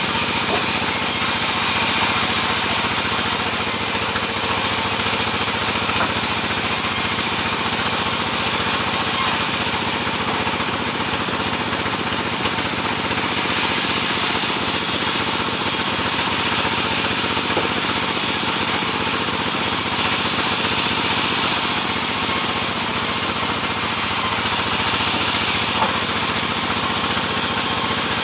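Sawmill running steadily while sawing sengon (albizia) wood: an even, unbroken machine noise with no pauses.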